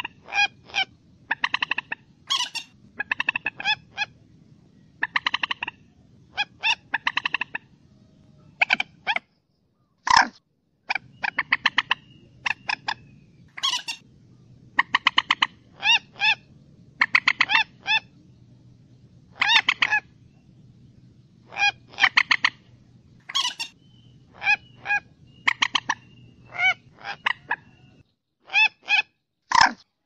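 Common moorhen calling: loud, harsh call notes in quick runs of several, repeated again and again with short gaps. A faint low hum runs underneath.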